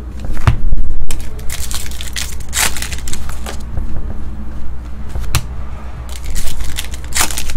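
Trading cards being handled and shuffled, with sharp snaps and rustles coming irregularly, several times over.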